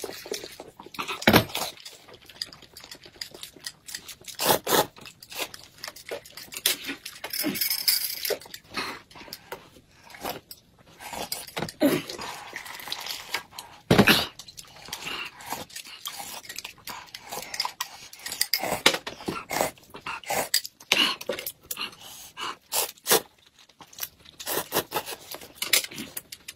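Eating sounds in irregular bursts: spoonfuls of thick corn soup sipped and slurped, food chewed, and spoons clicking against glasses and bowls.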